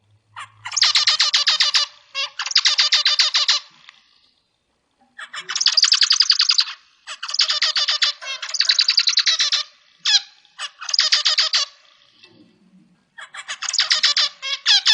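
Zebra finch singing: a run of short buzzy, rasping phrases, each about a second long, repeated with brief pauses between them.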